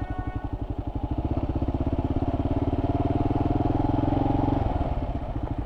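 Kawasaki KLR 650's single-cylinder engine running while riding, a fast even pulse. It swells over a few seconds, then falls back about four and a half seconds in.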